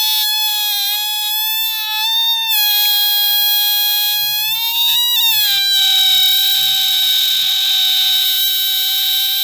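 Air squealing out through a stretched balloon neck: one long, steady high-pitched squeal that drops slightly in pitch and turns breathier a little past halfway.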